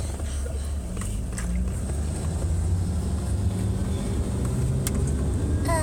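Steady low rumble of a car driving, heard from inside the cabin, with a few faint clicks. Just before the end a high, sliding voice cuts in.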